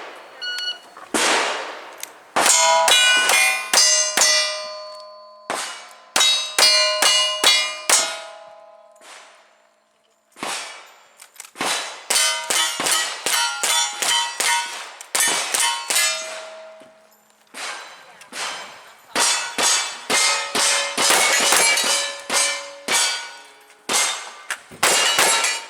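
Strings of gunshots in quick succession, each followed by the clang and ringing of a steel target being hit, with a few short pauses between strings.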